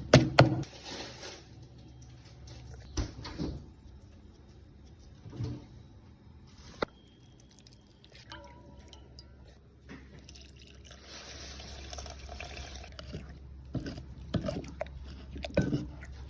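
Liquid pouring or splashing in two spells of a couple of seconds each, about a second in and again past the middle, with scattered light clicks and drips in between.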